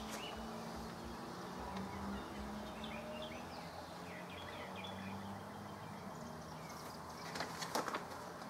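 Outdoor ambience: small birds chirping and a low buzzing hum that comes and goes. Near the end come a few brief rustles as the paper manual is handled.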